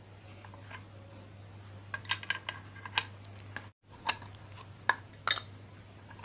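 Metal clinks and clicks of a wrench working a nut loose on a ceiling fan, a scattering of sharp ticks starting about two seconds in, over a faint steady hum.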